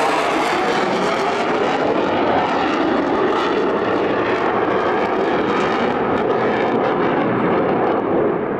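Military fighter jet passing overhead: loud, steady jet engine noise.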